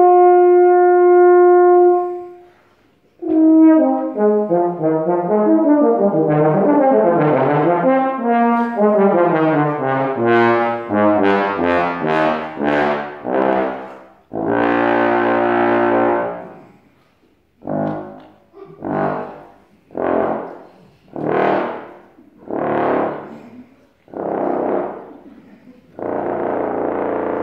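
Bass trombone playing a solo: a held note, a short pause, then fast runs of notes up and down. A long loud note comes about halfway through, followed by a string of short separate notes with pauses between them, and a held note near the end.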